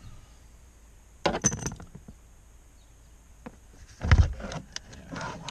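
Clinks and rattles as the old heater blower motor of a 2005 Dodge Ram is worked loose from its plastic housing under the dashboard, with a louder knock about four seconds in as the motor comes free.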